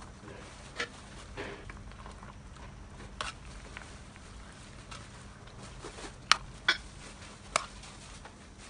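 Stirring Chinese cabbage into a metal pot: a utensil clicks and knocks against the pot, with leaves rustling. The knocks are scattered, with the three loudest close together a little past the middle.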